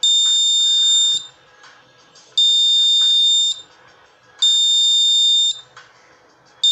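Piezo buzzer on a reed-switch magnet sensor sounding a steady high-pitched tone in bursts of about a second. There are three bursts, and a fourth starts at the very end. Each burst is the buzzer switching on as the magnet comes near the reed switch and closes the circuit.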